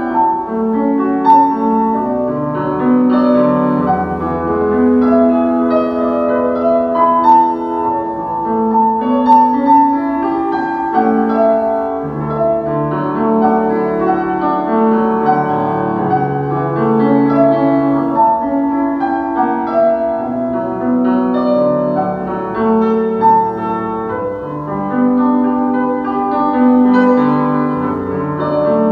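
Solo piano playing slow classical music, ballet-barre accompaniment for pliés.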